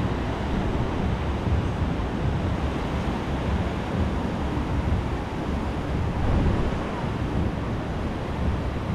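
Ocean surf washing in steadily, with wind noise on the microphone.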